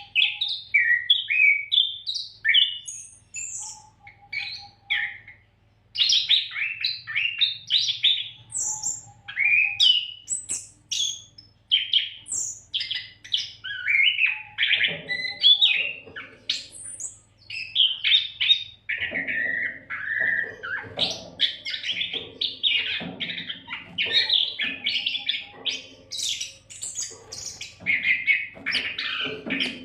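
Oriental magpie-robin (kacer) singing non-stop: a dense, varied stream of quick whistles, chirps and trills with hardly a pause, over a faint steady low hum.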